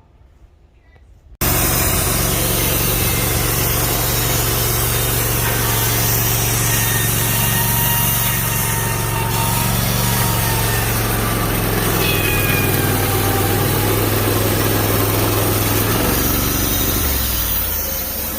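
Wood-Mizer LT15 Wide band sawmill running loud and steady as its band blade cuts a small cedar log; the sound cuts in suddenly about a second and a half in, and the engine note drops and quietens near the end.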